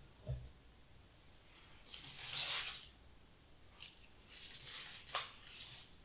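Dried bunny tail grass stems rustling and brushing together as they are handled and set into a vase, in several short crackly bursts, the longest about two seconds in. A soft knock sounds just at the start.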